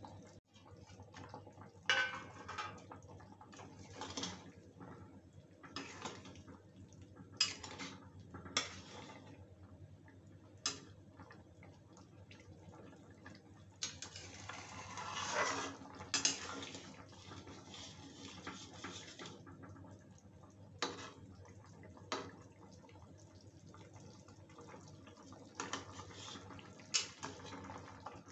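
Flat steel spatula stirring a watery potato and soya chunk curry in a metal kadai, scraping and knocking against the pan every second or two, with a longer stretch of stirring about halfway through. Under it the curry bubbles faintly at a simmer while the potatoes finish cooking.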